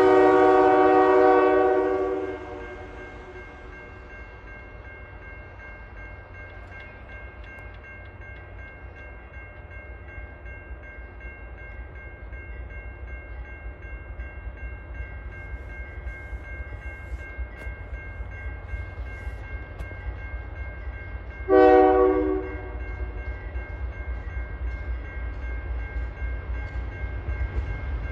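Locomotive air horn sounding a chord, cutting off about two seconds in, then the low rumble of the passing train growing louder. A second short horn blast comes about three-quarters of the way through.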